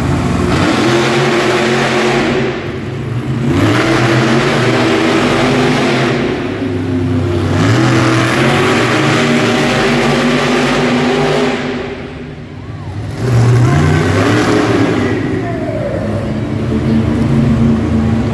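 Monster truck engines, supercharged V8s, revving hard again and again as the trucks drive around the dirt arena floor; the engine pitch rises and falls with loud surges every few seconds and brief lulls between.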